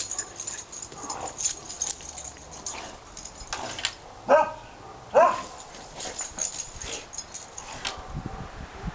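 A dog rubbing against bushes, the branches and leaves rustling and crackling, with two short barks about four and five seconds in.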